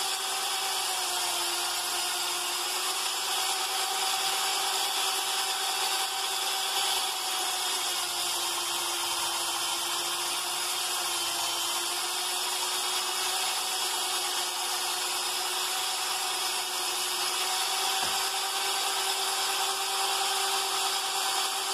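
A motor-driven wire wheel spinning steadily and brushing rust off a metal part, a constant hum under a dense scratchy hiss. The pitch sags slightly now and then as the part is pressed into the wheel.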